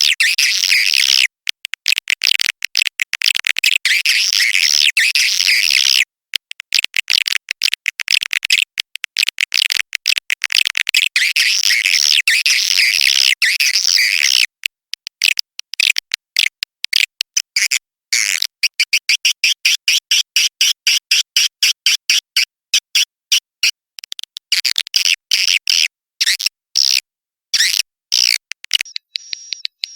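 Swiftlet call track used to lure edible-nest swiftlets into a bird house: dense, high-pitched twittering chatter for about fourteen seconds, then a fast string of separate sharp chirps.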